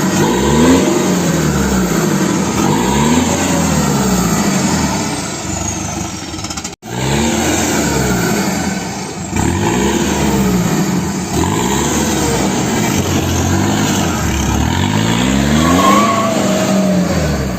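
Ford F250's four-cylinder Cummins turbo-diesel revved again and again through a modified exhaust, with the first muffler relocated to the rear and a diffuser straight off the turbo outlet; its pitch climbs and falls back with each rev. A faint high whistle slides down after some revs, and the sound drops out for an instant about seven seconds in.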